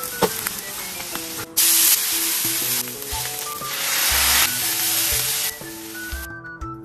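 Starch-dusted slices of hard-boiled egg frying in oil in a pan, a steady sizzle that jumps in loudness at each cut and stops about six seconds in. Background music plays throughout.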